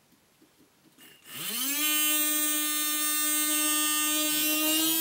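Small DC motor of a toy fire engine's water-squirter pump, powered from a 9-volt battery, spinning up with a rising whine just over a second in, then running steadily at high speed.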